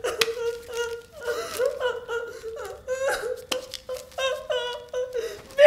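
A woman crying out and sobbing in distress: repeated short, high-pitched wailing cries and whimpers, broken by a couple of sharp knocks.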